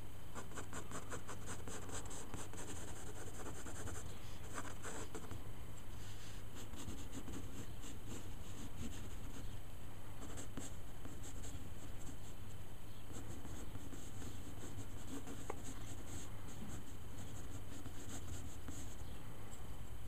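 Graphite pencil scratching across paper in clusters of quick, short sketching strokes, over a steady low hum.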